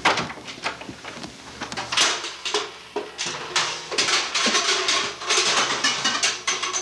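A door latch clicks as the door opens, then a metal-framed chair is smashed about: a long run of loud clattering crashes and bangs beginning about two seconds in.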